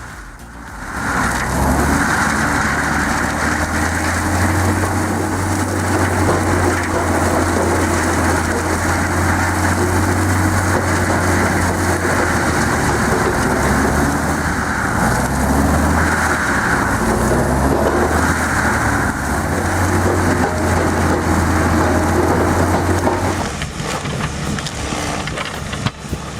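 Heavy stump-grinding machine at work: a steady engine drone under load with a dense crushing, grinding noise of wood being chewed up. It starts about a second in and drops away near the end.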